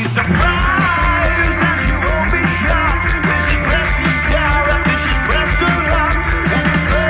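Rock band playing live at full volume: electric guitars, bass and drums. The bass and guitars come in full right at the start, after a passage led by the drums.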